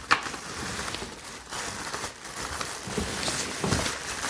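Plastic rubbish bags and packaging rustling and crinkling as they are pulled around, with a sharp crack just after the start and a few dull knocks later.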